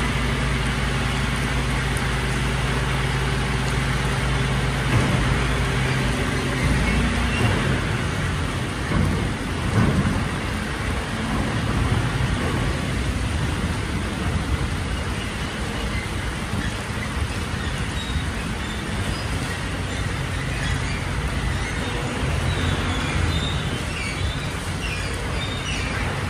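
Mercedes-Benz Arocs garbage truck's diesel engine running, with a steady engine tone for the first seven seconds or so, then turning unsteady with a few knocks around ten seconds in. It runs over a constant hiss of rain.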